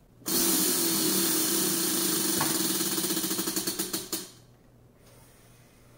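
Prize wheel spinning by hand, its pointer clicking against the pegs around the rim. The clicks come so fast at first that they run together into a rattle, then slow and spread out until the wheel stops about four seconds in.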